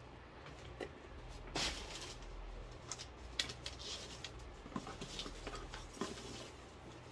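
Gift wrap and ribbon on a wrapped box being handled and pulled at: faint crinkling and rustling with scattered light clicks and taps, a few slightly louder ones spread through.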